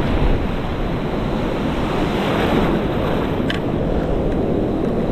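Ocean surf breaking and washing around, with wind buffeting the microphone, as a steady roar of noise. A single brief tick about three and a half seconds in.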